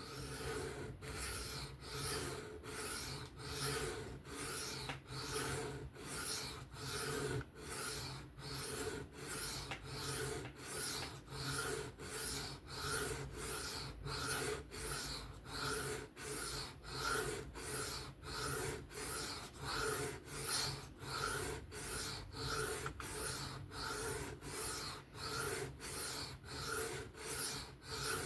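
Folding knife blade being stroked freehand across a sharpening stone: an even run of scraping strokes, about three every two seconds.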